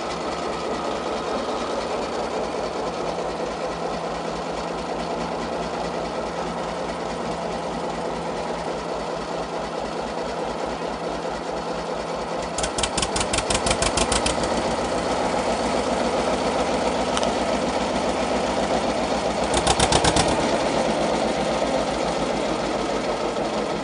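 Deutz diesel engine of a 1944 Zettelmeyer road roller, just started from cold, running at a steady knocking idle. Twice, a little past halfway and again later, it picks up into a louder, quicker clatter for a second or two before settling back.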